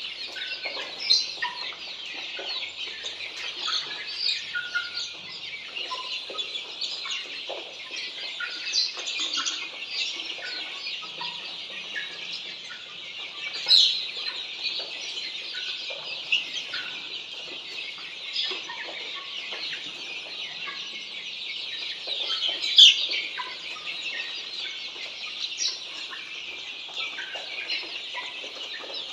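A large brood of Australorp chicks peeping together: a dense, continuous chorus of many overlapping high chirps. Two louder sharp sounds stand out, about halfway through and again later.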